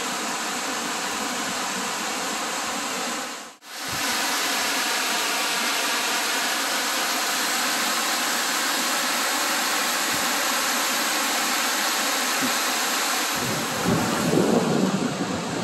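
Waterfall rushing steadily over rock, with a brief dropout a few seconds in. Near the end it gives way to gusty wind buffeting the microphone over waves on a choppy lake.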